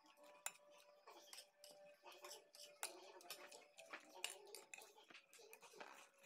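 Faint close-up eating sounds: chewing, with many light, irregular clicks of a spoon and fork against a plate of rice and vegetables.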